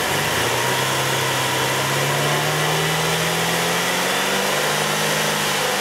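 A Pontiac G6 GTP's 3.6 liter V6 is brought up from idle and held at a steady 3,000 rpm, its note drifting slightly upward. This is the steady-throttle stage of an exhaust backpressure test.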